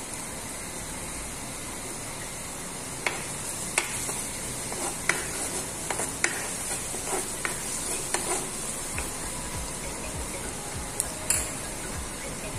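Chopped garlic sizzling in hot oil in a nonstick wok, a steady hiss. From about three seconds in, a silicone spatula stirs it, tapping and scraping against the pan in irregular clicks.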